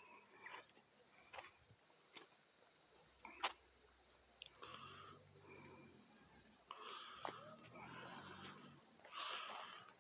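Steady high-pitched chorus of crickets, with scattered sharp clicks or pops, one louder about three and a half seconds in, and faint distant voices in the second half.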